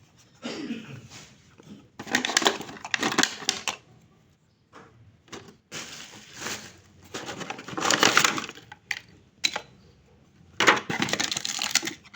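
Packaging being handled as a small smart CCTV camera and its parts are unpacked: crinkling and rustling in three long bursts, with a few small clicks between them.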